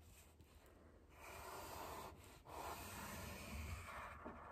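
Faint scratching of a pencil drawing on folded paper, in two long strokes: one about a second in, the other from about two and a half seconds in.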